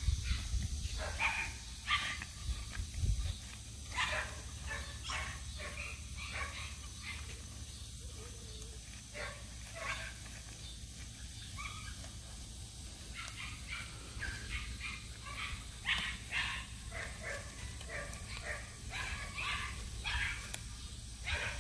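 Young standard poodle puppies yipping and whimpering in short, high calls, on and off, with a busier stretch of calls in the second half.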